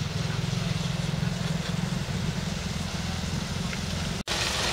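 Diesel engine of a double-decker bus running with a low, steady throb as the bus creeps forward close by.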